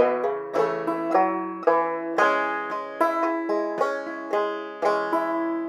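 Five-string banjo played clawhammer style: a short bum-ditty and drop-thumb phrase of struck and plucked notes, about two to three strokes a second, settling into an E minor chord with the notes ringing on over each other.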